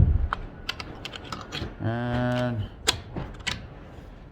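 Scattered light clicks and knocks of a storm door's makeshift latch and handle being worked.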